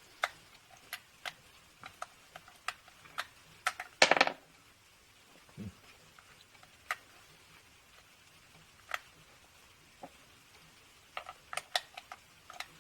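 Scattered small plastic clicks and taps as batteries are pressed into a digital multimeter's battery compartment, with one louder, longer snap about four seconds in.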